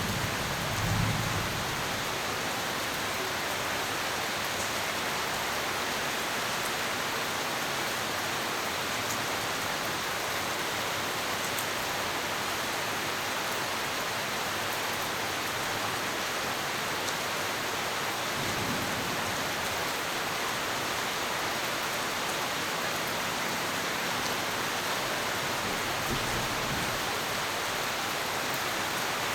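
Steady rain falling, with a low rumble of thunder about a second in and fainter distant rumbles later on.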